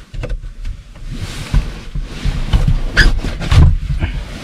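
Handling noises inside a pickup's camper shell as a person moves around on a sleeping pad and reaches for gear: irregular rustling, bumps and a few sharp knocks about three seconds in.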